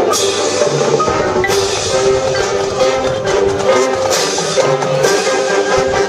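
High school marching band playing: held brass chords over drums, with a few sharp crashes.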